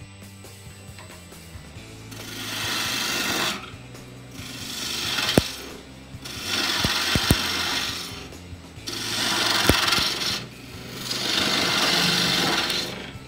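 Power woodworking tool cutting wood in repeated passes: about five bursts of cutting noise, each a second or two long, with quieter gaps between them and a few sharp clicks.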